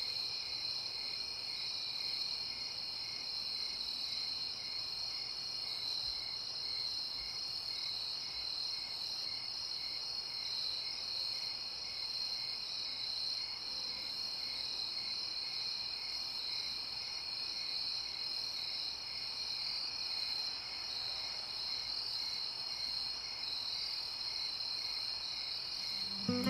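Night insect chorus: crickets trilling steadily, with a fainter chirp repeating about twice a second.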